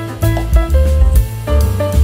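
Background music: an upbeat jazzy tune with drum kit and bass.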